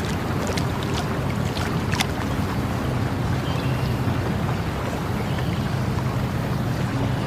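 Water flowing steadily with a low, even rush, with a few sharp clicks or drips in the first two seconds.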